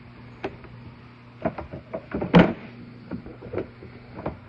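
Hands handling the plastic bodywork and storage-compartment lid of a 2001 Bombardier Traxter ATV: a scatter of clicks and knocks, loudest about two and a half seconds in, over a steady low hum.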